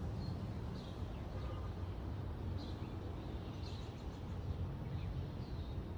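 Backyard ambience: a steady low rumble of breeze with faint, brief bird chirps every second or so.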